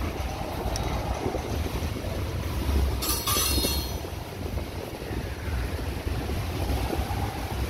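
Freight train cars rolling past over a steel girder bridge, a steady low rumble, with a brief high hiss or screech about three seconds in.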